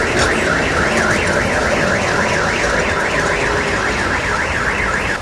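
Electronic alarm siren warbling rapidly up and down, about three sweeps a second, over the rumble of street traffic.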